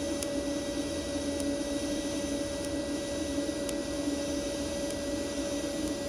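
TIG welding arc from a YesWelder Firstess MP200 in lift-TIG mode burning steadily while a bead is laid: an even hiss with a steady hum, and a few faint ticks.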